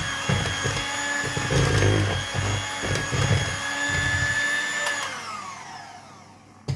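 Electric hand mixer running steadily, its beaters whipping cake batter in a plastic bowl. About five seconds in it is switched off and its whine falls in pitch and fades as the motor winds down, followed by a sharp click near the end.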